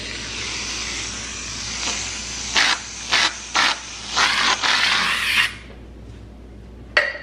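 Aerosol can of whipped cream spraying: a long hiss with several louder spurts, stopping about five and a half seconds in, then one short spurt near the end.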